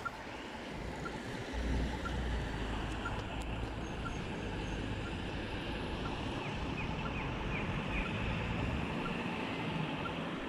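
Road traffic at a city junction: a city bus drives off and other vehicles run past, with a low engine rumble swelling from about a second and a half in. A faint, regular tick sounds about once a second throughout.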